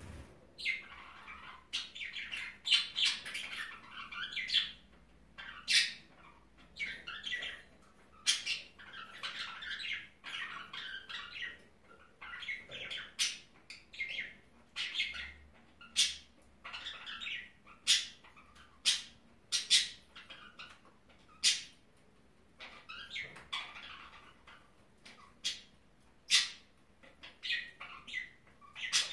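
Pet budgerigars chirping and squawking: a steady run of short sharp calls and warbling chatter, one after another every second or so, with brief lulls.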